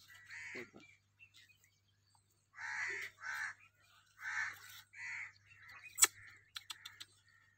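Crows cawing, a series of harsh caws spread over several seconds, with a sharp click about six seconds in.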